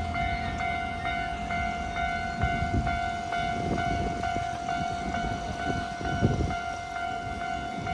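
Japanese level-crossing warning bell ringing in a rapid, even ding-ding over the low rumble of a Hankyu train going through the crossing, with heavier wheel thuds in the middle.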